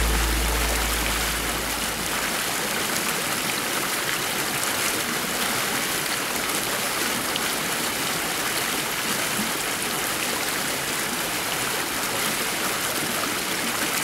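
Small river running high after rain, rushing and churning white over rocks in a riffle: a steady, even rush of water.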